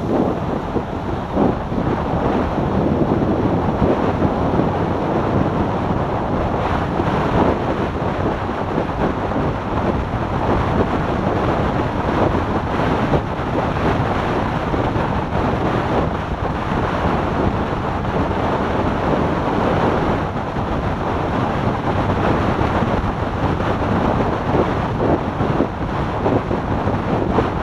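Steady wind noise buffeting the microphone of a motorcycle at highway speed, with road and engine noise mixed in underneath.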